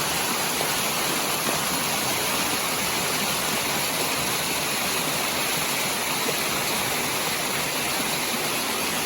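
Waterfalls falling steadily: an even, unbroken rush of water.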